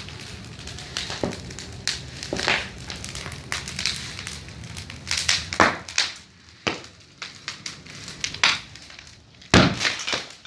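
Bonfire crackling, with frequent sharp pops and snaps over a steady hiss of burning, and one loud sharp crack near the end.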